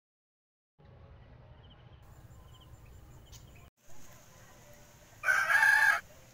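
A rooster crowing once, short and loud, near the end, over a faint steady outdoor background with a few small chirps.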